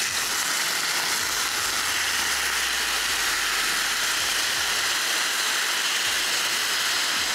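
Spatchcocked chicken, its skin sprayed with duck fat, sizzling and spattering steadily as it sears on the hot grill grate of a Ninja Woodfire Grill.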